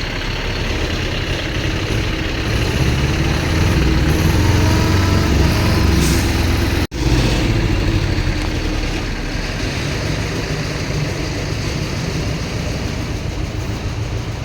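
Heavy road vehicle engine running with a low rumble that swells for a few seconds. The sound drops out for an instant about seven seconds in.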